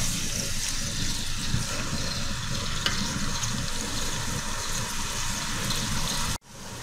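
Sliced red onions sizzling in hot oil in an aluminium pot, stirred with a wooden spoon at first: a steady frying hiss with a few faint scrapes, as the onions soften and lose their rawness. The sound cuts out abruptly for a moment near the end.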